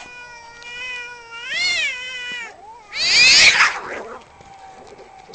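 Street cats fighting: a long, drawn-out yowl that swells up in pitch and falls back midway, then a loud, harsh screech about three seconds in.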